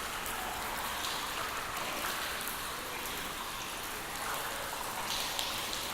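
Steady rain falling, an even hiss of many drops with faint individual drop ticks scattered through it.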